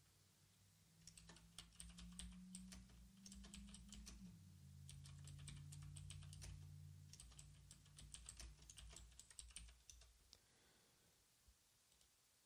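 Faint typing on a computer keyboard: several quick runs of keystroke clicks with short pauses between them, stopping about ten seconds in, over a faint low hum.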